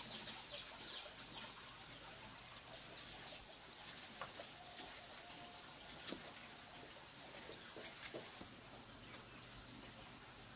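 A steady high-pitched chorus of insects, crickets or cicadas, chirring throughout, with a few faint taps and rustles from hands working flour dough in a plastic bowl.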